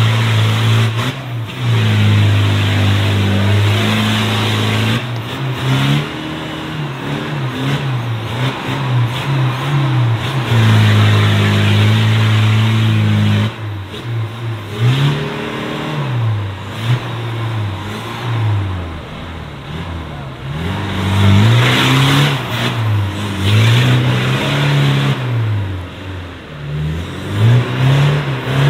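Off-road 4x4's engine revving hard: held high for stretches, then rising and falling again and again through the second half.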